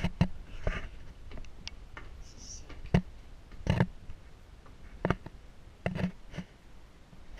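Footsteps and knocks on old wooden floorboards and stairs: irregular hollow thuds and clicks, about one every half second to a second.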